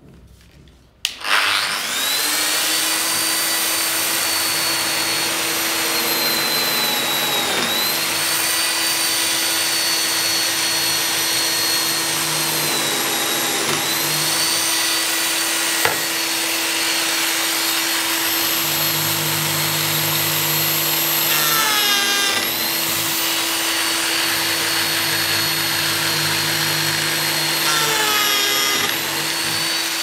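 Lamello Zeta P2 biscuit joiner starting up about a second in and running with a high whine, plunging several times to mill Clamex P-10 connector grooves into panel edges. The pitch sags each time the cutter bites into the board.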